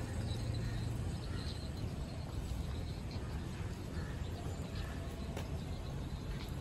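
Steady outdoor background noise, mostly a low rumble.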